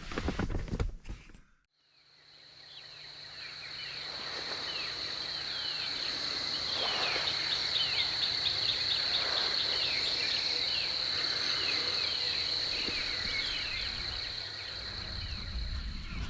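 Outdoor field ambience: a steady high-pitched insect drone with many short, falling bird chirps. It begins about two seconds in and grows gradually louder.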